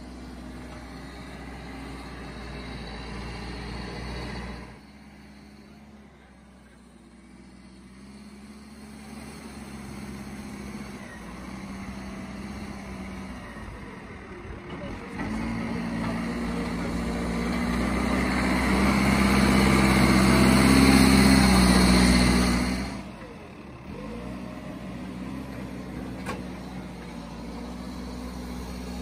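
New Holland backhoe loader's diesel engine running under work. It drops sharply about five seconds in, then grows louder with a rising note to its loudest past the middle, and falls back abruptly near the end.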